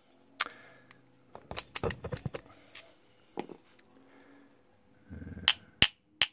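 Small hammer tapping on the brass body of a Lockwood 245 padlock: a few scattered knocks, then a run of sharp taps about three a second starting near the end. The tapping is meant to bring out the outline of the hidden shackle retainer pin plug.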